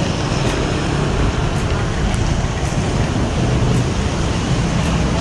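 Steady rushing noise of road traffic and wind in rainy weather, with no clear single event.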